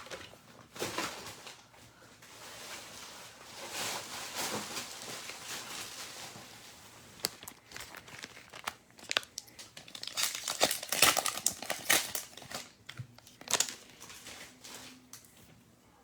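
A wrapper on a pack of trading cards being torn open and crinkled, with crackling of the wrapper and the cards being handled.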